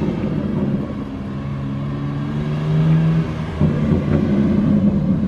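BMW G80 M3's twin-turbo straight-six driving slowly toward the listener on the exhaust, a deep, steady low note. It rises a little in pitch and gets louder about three and a half seconds in as the car comes closer.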